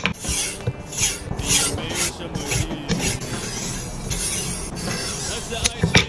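Kitchen knife blade drawn along a paddle strop in repeated dry, rasping strokes, about two a second: the stropping stage that finishes the edge after whetstone sharpening.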